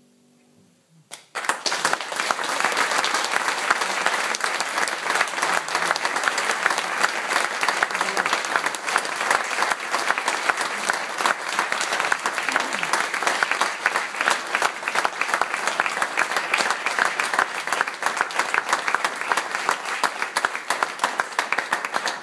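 Audience applause, starting suddenly about a second in and then going on as steady, dense clapping.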